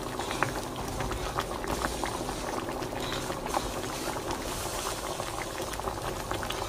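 Water at a rolling boil in a pan of pork pieces being parboiled, bubbling steadily with many small pops.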